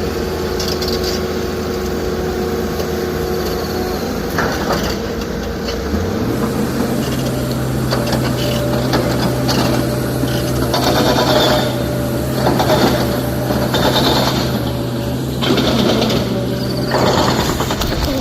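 Heavy diesel engine of quarry machinery running steadily, rising to higher revs about six seconds in and holding there. Repeated short bursts of rattling noise come over it in the second half.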